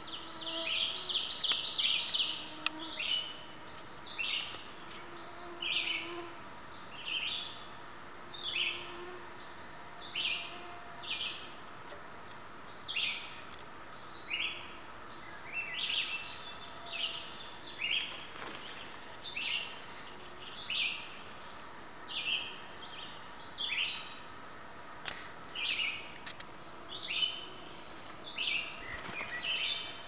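Forest songbirds singing: one bird repeats short phrases about once every second or so throughout, over a louder, longer song near the start.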